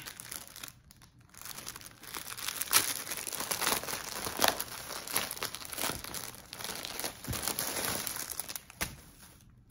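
Packaging crinkling and rustling as it is handled and unwrapped by hand, a dense run of crackles that starts about a second and a half in and stops just before the end.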